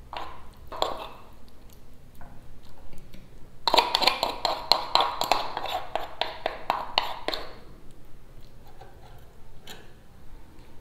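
A kitchen utensil clicking and scraping against a dish in a fast run of strokes for about four seconds in the middle, with a few scattered taps around it.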